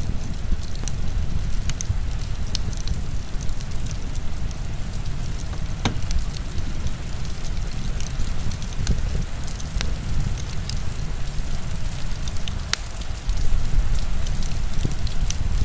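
Heavy rain pouring steadily, mixed with a wood fire crackling in sharp irregular pops.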